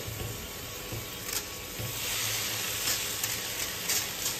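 Hot pan sizzling as drained instant noodles drop into the oil and fried egg, the sizzle growing louder about two seconds in, with light clicks of a fork against the mesh strainer and pan.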